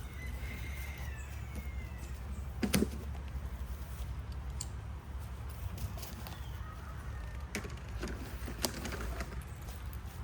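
Hands working on parts in a car's engine bay: a few sharp clicks and knocks, the loudest about three seconds in, over a steady low hum.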